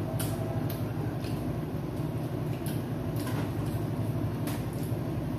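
Soft irregular clicks and smacks of people eating with their hands from plates, over a steady low hum.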